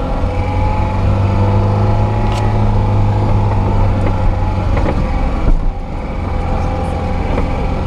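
Lada Niva 2121's four-cylinder petrol engine running steadily at low revs while the car crawls over a rough track, with scattered knocks and rattles. There is a single thump about five and a half seconds in.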